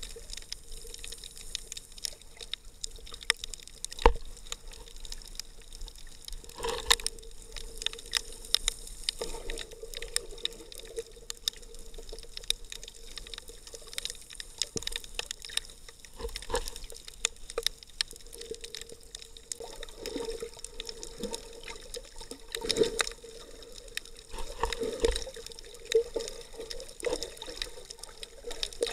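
Underwater sound heard through an action camera's waterproof housing: muffled water sloshing and bubbling with scattered sharp clicks and pops, over a steady low hum. A few louder splashy surges come along the way.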